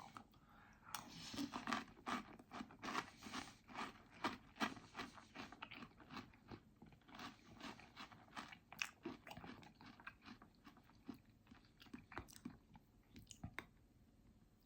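Close-up chewing of crunchy chocolate cereal in milk: a run of faint, irregular crunches about twice a second, the flakes still crisp despite sitting in the milk. The chewing tails off near the end.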